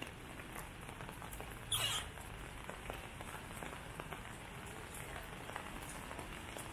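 Steady rain falling on wet paving and grass, with scattered drips ticking. About two seconds in there is one brief, sharp noise, the loudest sound here.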